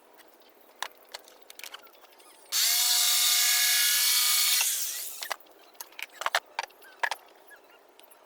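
A handheld power tool's electric motor starts about two and a half seconds in, runs at a steady high pitch for about two seconds, then winds down. Scattered clicks and taps come before and after it.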